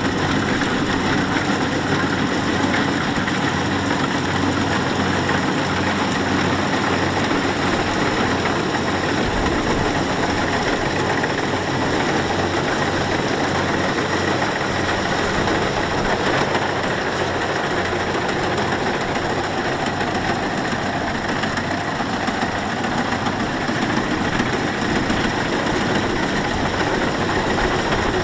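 Kubota rice combine harvester running steadily, its diesel engine and threshing machinery making an even, continuous drone.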